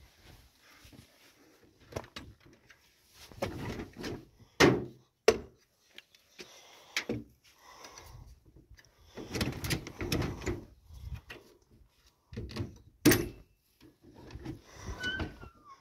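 A hut door being handled and opened: several sharp clicks and knocks from the handle and latch, with rustling between them and a short squeak near the end.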